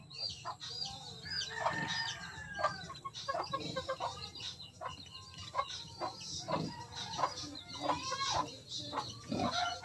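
Farmyard animal calls: many short, high chirping calls and clucks scattered throughout.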